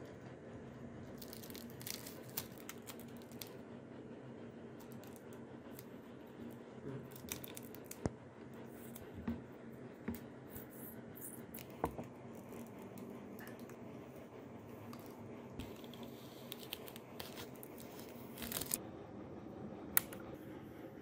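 Adhesive vinyl stencil and clear transfer tape being peeled and smoothed down with gloved fingers: scattered soft crinkling, tearing and rubbing over a faint steady hum. Near the end, one sharp click as a bench power supply's push-button switch is pressed.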